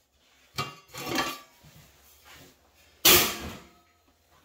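Sheet-metal cased TV/FM modulator units knocking against each other as one is handled on the stack: a couple of light knocks about half a second and a second in, then a loud metal clank about three seconds in that rings briefly.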